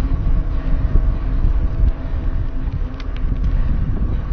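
Wind buffeting a helmet-mounted action camera's microphone over the rumble of a mountain bike rolling fast down a dirt trail, with a few sharp clicks about three seconds in.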